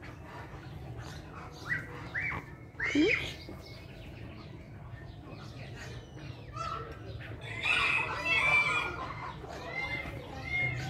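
Birds calling in an aviary: a few short sweeping calls about two to three seconds in, then a dense burst of overlapping calls and chatter about eight seconds in.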